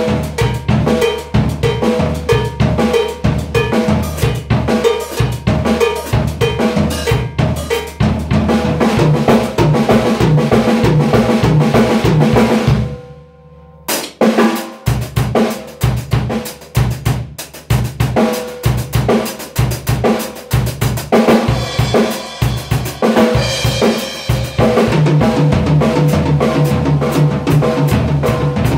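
Drum kit played in an Afro-style groove in 6/4, with bass drum, snare and cymbals keeping a steady dense pattern. About halfway through the playing stops abruptly for about a second, leaving a short ring, then the groove starts again.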